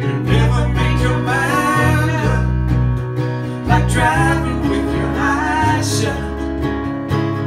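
A song played live: a strummed acoustic guitar over steady low bass notes, with a sung melody coming in and out.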